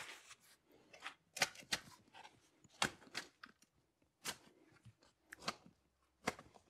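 Steel spade digging into loose soil to deepen a planting hole: a run of sharp, uneven crunches as the blade cuts in and lifts, about nine strokes, some in quick pairs.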